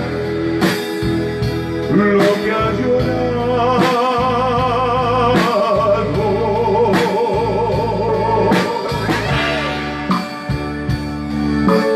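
Live band music: an electronic keyboard and drums play a slow romantic song while a man sings into a microphone.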